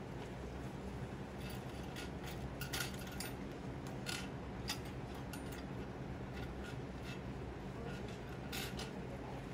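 Small metal implements and plastic packets being handled and set down on a table: scattered light clicks and rustles over a steady low room hum.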